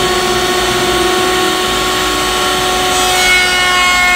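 Table-mounted router running steadily at full speed with a high, even whine as a board stood on end is fed past the dovetail bit, cutting a sliding dovetail on the board's end. The whine's tone shifts about three seconds in.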